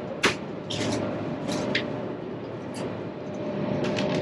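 Interior noise of a double-deck TGV high-speed train in motion: a steady rumble with a faint steady whine, broken by several short clicks and rattles.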